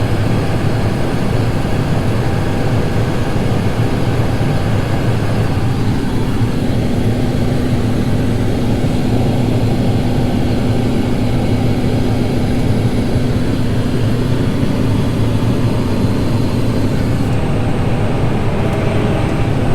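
Tractor engine running steadily at high throttle, driving the grain cart's unloading auger as shelled corn is augered out through the spout. A steady higher tone joins the drone for about ten seconds from roughly a third of the way in.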